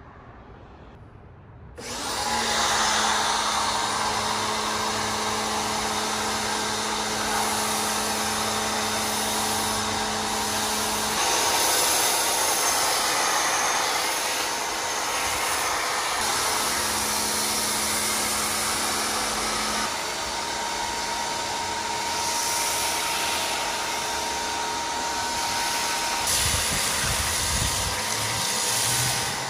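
Pressure washer running with a foam cannon: a steady hiss of spray over a motor hum, starting about two seconds in.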